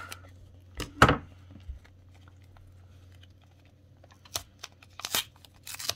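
Taped paper wrapping around a CPU being handled and torn open by hand: a couple of loud rustles about a second in, then short crinkles and rips in the last two seconds.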